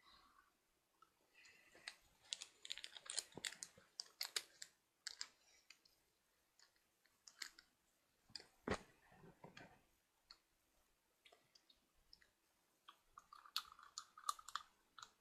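Faint, scattered clicks and crackles: a bunch of them about two seconds in, one sharper click near the middle, and another bunch near the end.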